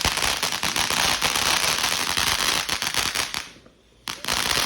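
Consumer firework going off in a dense, rapid crackle of pops. It stops about three and a half seconds in and bursts into crackling again about half a second later.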